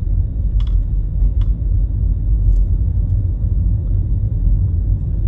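Steady low rumble of a car's road and engine noise heard from inside the cabin while driving along a city street, with a few faint light ticks.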